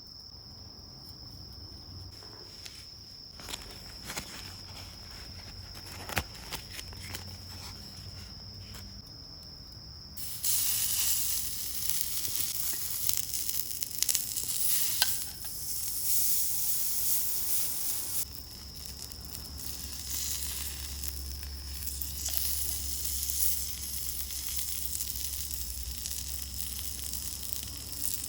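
Food sizzling and frying on a hot campfire grill plate, a steady hiss that starts suddenly about ten seconds in, with a few pops and ticks. Before it, insects chirp in one steady high note, with a few light clicks.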